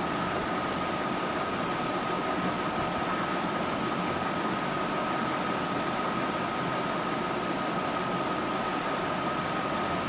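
Steady hiss-like background noise with a constant high-pitched tone held through it, unchanging throughout.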